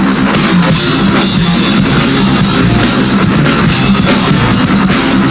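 Rock band playing live: drum kit and electric guitars in the instrumental lead-in to a song, loud and steady.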